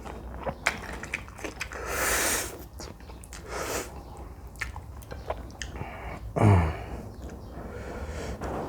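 A person eating jjajangmyeon noodles close to the microphone: wet chewing and small lip-smacking clicks, with two short hissing rushes of air around two and nearly four seconds in, and a short low hum about six and a half seconds in.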